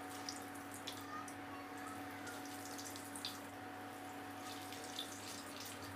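Breaded potato-stuffed bread snacks sizzling softly in hot oil as they are lowered in one by one, with a few small crackles. A faint steady hum runs underneath.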